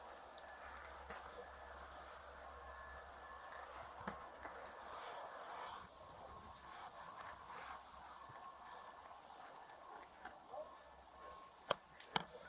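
Crickets trilling steadily in a continuous high-pitched drone, with a few sharp clicks near the end.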